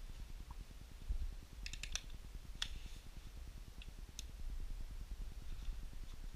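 A few sharp clicks over a steady low rumble: a quick run of about four clicks near two seconds in, one louder click shortly after, and two fainter ticks a little later.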